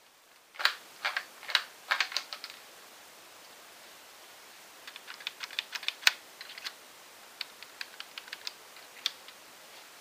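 Hard plastic clicks and rattles from a Lego bolt-action rifle model being handled. A cluster of loud clicks comes in the first couple of seconds, then a longer run of lighter, quicker clicks.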